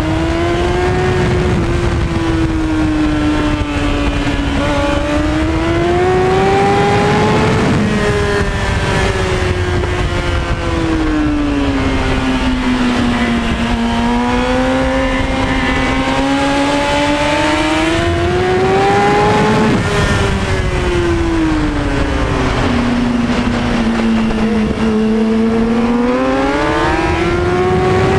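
2003 Kawasaki Ninja ZX-6R 636's inline-four engine at speed, recorded onboard. Its pitch rises and falls in long smooth sweeps, about three times, as the rider drives and eases off through the corners. Steady wind rush lies under it.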